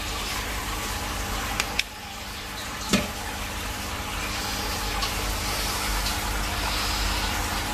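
Aquarium filter running: a steady splash and trickle of water over a low pump hum. A few small clicks cut through it, the loudest about three seconds in.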